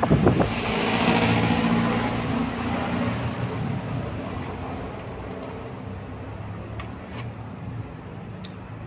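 A vehicle engine running steadily, with a rushing hiss that swells about a second in and dies away over the next few seconds. A few light clicks come near the end.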